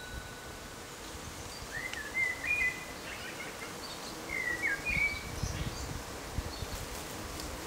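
A songbird sings two short warbling phrases, about two seconds in and again around four and a half seconds in, over a low outdoor background rumble.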